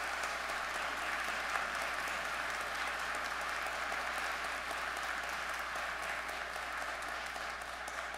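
A congregation applauding, a steady dense patter of many hands clapping that eases slightly near the end.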